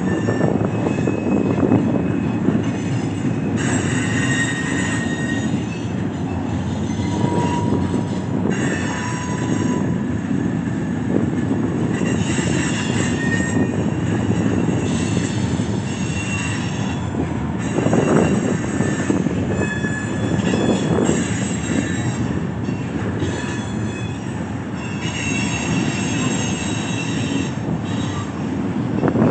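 Freight cars of a long steel train rolling past, a steady rumble of wheels on rail. High wheel-flange squeals come and go throughout as the cars take the curve of the wye.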